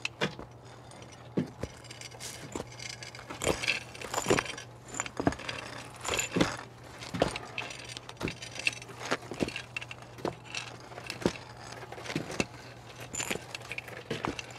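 Slow footsteps, about one a second, crunching and clinking over broken brick and rubble, over a steady low hum.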